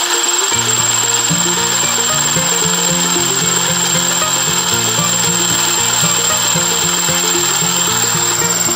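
Miniature model engine belt-driving a toy corn mill, running steadily with a constant high motor whine. Background music with low stepping notes comes in about half a second in.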